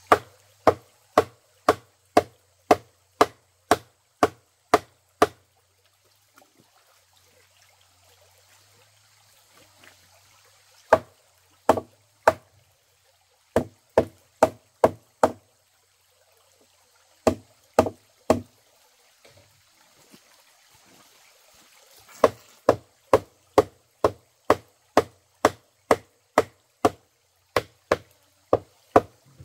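Hammer blows on the wooden axle and support frame of a waterwheel, sharp knocks about two a second in several runs with short pauses. A stream trickles faintly between the runs.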